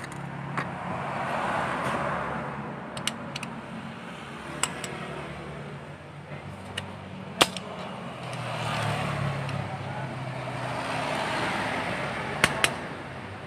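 Scattered sharp clicks and taps as the metal parts of a scooter's CVT clutch, the shoe assembly and its studded plate, are handled and fitted together. Behind them runs a steady hum of passing road traffic that swells a few times.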